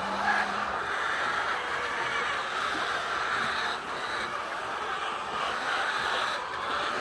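A flock of laying hens clucking and squawking together in a steady, unbroken din.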